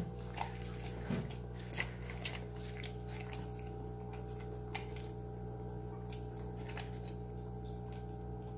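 Siberian husky mother licking a wet newborn puppy clean: faint, scattered wet licking and smacking clicks over a steady low background hum.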